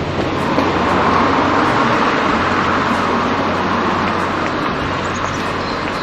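Road and wind noise of a moving car heard from inside: a steady rushing with a low hum under it, swelling slightly about a second in.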